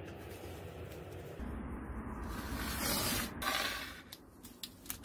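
A small plastic packet holding a new ball bearing is rustled and torn open, a loud crinkling hiss about halfway through. A few light clicks follow as the bearing is handled and set down.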